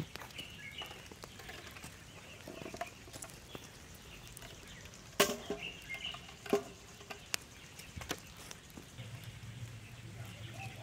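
Aluminium mess tin set down with tongs on a metal mesh grill: two sharp metallic clanks a little over a second apart about halfway through. Light crackling from the wood fire underneath, with birds chirping in the background.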